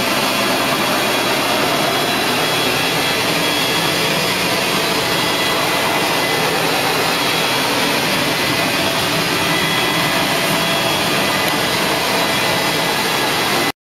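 Rotovac 360i rotary carpet-cleaning tool working a carpet, with the hot-water extraction machine's vacuum suction making a loud, steady rushing noise. It stops abruptly near the end.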